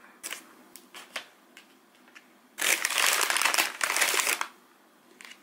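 A few light taps and clicks, then a packaging bag crinkling loudly for about two seconds as it is handled.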